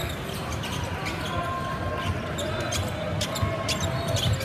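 Basketball game in a gym: a basketball bouncing on the court, with many short, sharp sounds throughout and distant voices in the background.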